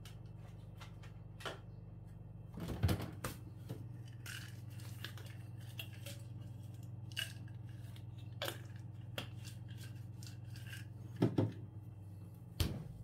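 Small clicks, taps and rustles of a cat's medicine being made up by hand, steroid powder being packed into capsules, over a steady low hum. The handling noises come in scattered bursts, loudest about three seconds in and twice near the end.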